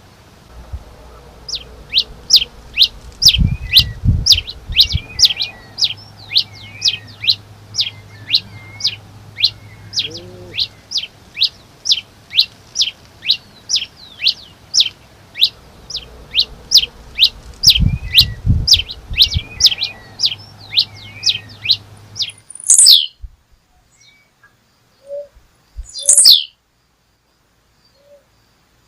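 A songbird repeating sharp, downward-sweeping chirps in a fast run of about two a second, as a bird-song tutor (masteran) recording. The run stops about 22 seconds in, and two louder single calls follow. There are two brief low rumbles under the chirping.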